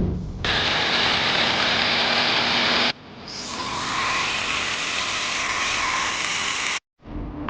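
Steady loud hissing noise in two stretches, each cut off abruptly, with a faint steady tone through the second stretch.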